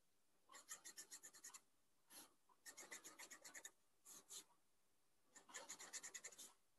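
Felt-tip pen drawing dots and short lines on paper, faint, in several short runs of quick strokes with pauses between them.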